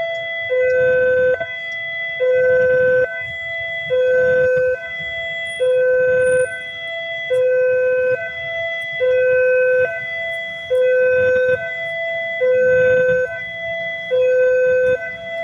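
Railway level-crossing warning alarm sounding, an electronic two-tone signal alternating steadily between a lower and a higher tone, each held just under a second. It warns that a train is approaching the crossing.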